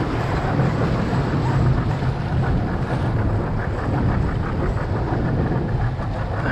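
An 85 hp outboard motor runs steadily as the small boat moves through choppy water, with water rushing past the hull and wind buffeting the microphone.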